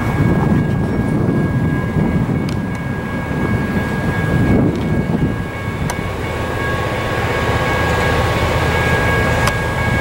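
Approaching diesel freight locomotive running, heard as a steady low rumble mixed with wind buffeting the microphone.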